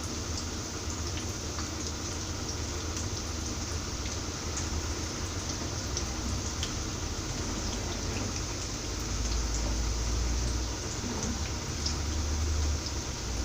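Breaded beef cutlets shallow-frying in hot oil in a frying pan on medium flame: a steady sizzle with scattered small pops.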